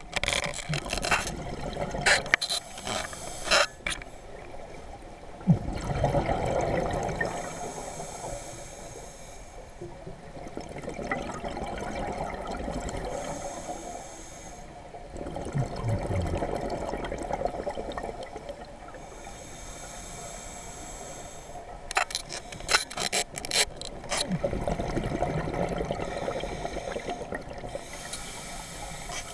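Scuba diver breathing through a regulator underwater, in a slow cycle of a few breaths: each inhalation a steady hiss, each exhalation a crackling, rumbling burst of bubbles.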